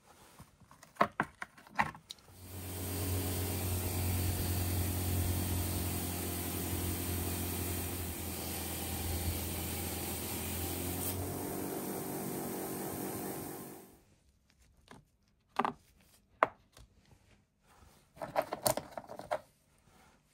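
An electric power tool motor starts about two seconds in, runs steadily for about twelve seconds with a low hum under a wide hiss, then winds down and stops. A few sharp clicks and knocks come before and after it.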